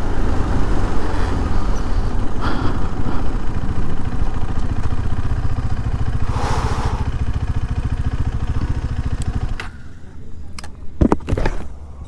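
KTM motorcycle engine running as the bike slows and pulls over, then cutting out sharply a little over three-quarters of the way through as it is switched off. A few sharp clicks and knocks follow near the end.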